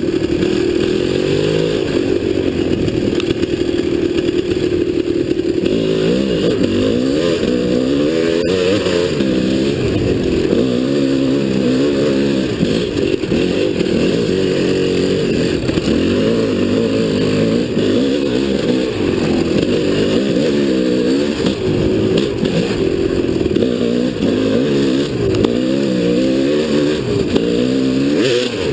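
Dirt bike engine running under load on a trail. Its pitch holds fairly steady for the first few seconds, then rises and falls over and over as the throttle is opened and closed.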